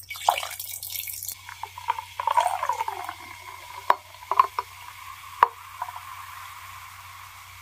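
Cola poured from a can over ice into a large glass for about the first second and a half, then the carbonation fizzing and crackling in the glass, with a few sharp clicks in the middle and a steady hiss that slowly fades.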